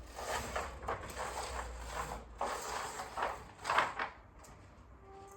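Irregular rustling and scraping noises for about four seconds, loudest near the end of that stretch, then soft music begins near the end.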